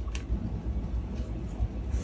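A steady low rumble with a single sharp click shortly after the start as the wooden 4x5 camera and its stiff bellows are handled.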